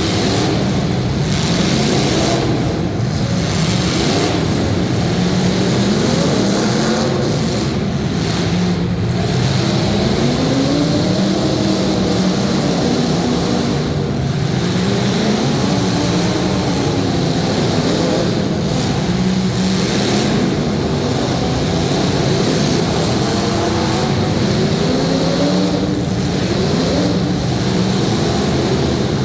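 Demolition derby cars' engines revving hard, several at once, their pitch rising and falling again and again under a steady loud din.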